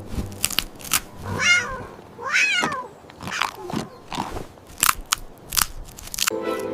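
A cat crunching and chewing hard candy in sharp, irregular crunches, with two short falling meows about one and a half and two and a half seconds in. Music comes back in near the end.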